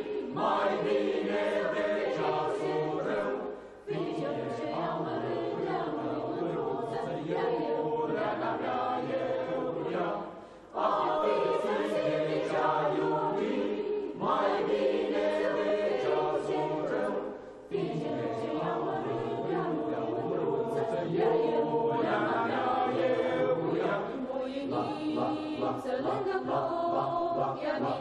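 Mixed choir singing in full voice under a conductor, in long sung phrases with brief breaks between them about 4, 10 and 17 seconds in.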